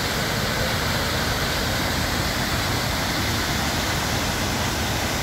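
Large waterfall with several broad channels plunging over a cliff into the pool below: a steady, unbroken rush of falling water.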